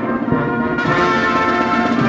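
Music with brass and drums: held brass chords over timpani-like drum hits.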